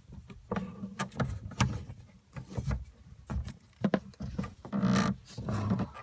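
Small plastic PEX push-fit fittings being handled on a wooden tabletop: irregular clicks and light knocks as the parts are turned in the hands and set down, with a brief rustle about five seconds in.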